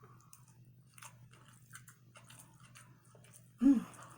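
Soft chewing with wet mouth clicks and smacks as the eater works through a mouthful of stuffed-pineapple rice, egg and bacon. A short voiced hum comes about three and a half seconds in.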